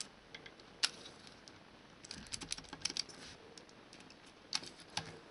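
Faint, irregular clicks and crinkles of aluminium foil as a pointed tool pierces crosses into a homemade foil exhaust gasket, in small clusters around the middle and near the end.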